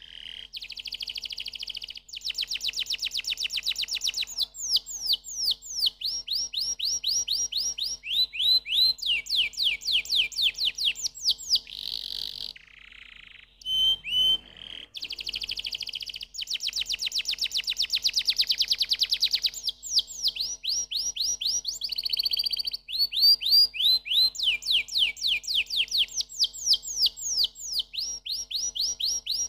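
Domestic canary singing a long, high-pitched song of fast trills and rapid runs of repeated sweeping notes, with a short break about twelve seconds in.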